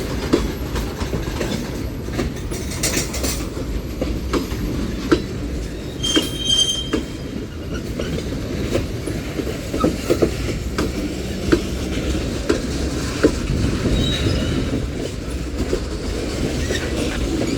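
Freight cars of a long mixed freight train rolling past: a steady rumble with wheels clacking over rail joints, and a short high wheel squeal about six seconds in.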